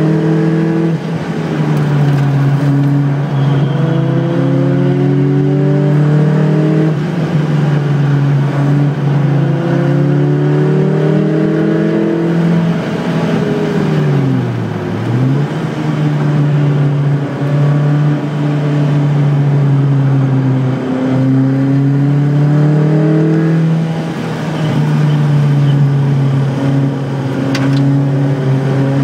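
Car engine driven hard on a circuit lap: its note climbs steadily as it pulls, then drops back at each gear change, several times over. About halfway through the pitch dips low and climbs back up.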